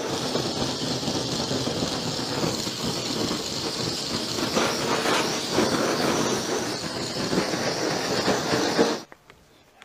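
Butane blowtorch on a gas canister burning with a steady, loud hiss as its flame is played over a raw chicken. It cuts off abruptly about nine seconds in.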